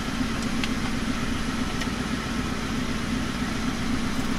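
Car engine idling with a steady low hum, with a few faint clicks from the head unit and its wiring being handled.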